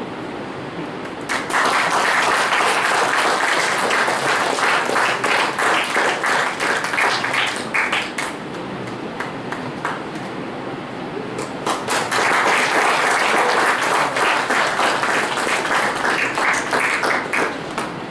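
Audience applauding in two rounds, each about six seconds long, with a quieter lull of a few seconds between them.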